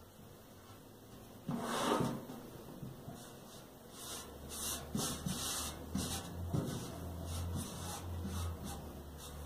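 A magazine page rustling as it is handled, loudest about a second and a half in, then a hand rubbing it flat against a metal bread box lid in a run of short brushing strokes.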